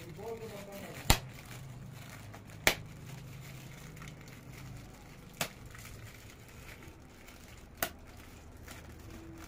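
Shiny gift wrapping being handled and pulled open by hand, crinkling softly, with four sharp crackles spaced a couple of seconds apart.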